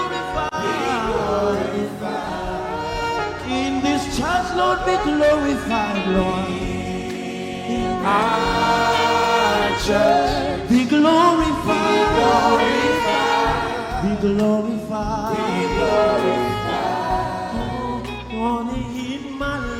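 Gospel worship music: voices singing together, choir-style, over steady instrumental backing in the low register.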